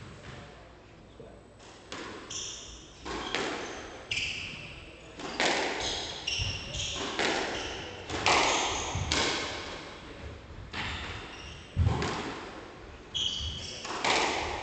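Squash rally: the ball cracks off rackets and the court walls about once a second, echoing in the hall, with short shoe squeaks on the wooden court floor in between.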